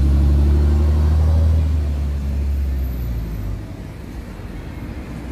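Low engine rumble of a passing road vehicle, fading away over about three seconds and leaving faint street noise.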